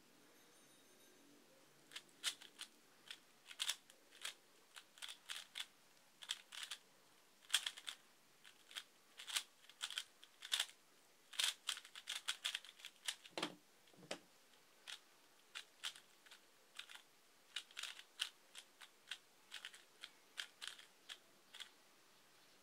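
A QiYi Valk 3 3x3 speedcube being turned fast during a timed solve: a rapid, irregular run of sharp plastic clicks and clacks as the layers snap round. It starts about two seconds in.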